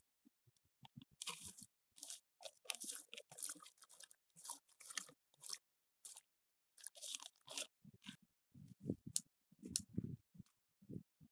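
Apple wood smoking chips rustling and crunching in short bursts as they are poured from their bag into a plastic bin and stirred by hand. A few dull knocks follow near the end.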